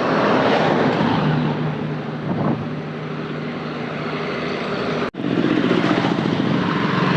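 Highway traffic passing close by: the engines of buses and trucks running over tyre and road noise. The sound cuts out abruptly for a moment about five seconds in, then comes back.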